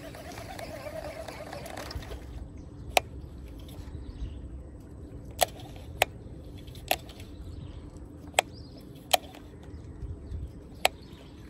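Fishing tackle being worked: a brief whir of a baitcasting reel at the start, then about seven sharp, irregular clicks from the rod and reel as the lure is twitched.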